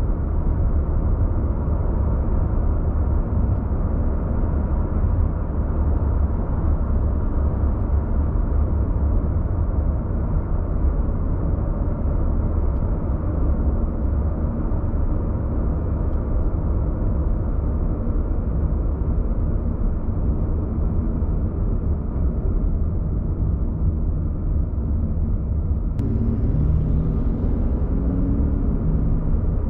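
Car driving at steady road speed, heard from inside the cabin: a continuous low rumble of engine and tyre noise.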